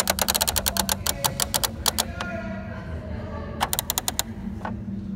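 Plastic mechanisms of a Fisher-Price Activity Center baby toy clicking rapidly as they are worked by hand. There is a quick run of clicks for about the first two seconds, a short faint ringing, then another brief run of clicks and one last click near the end.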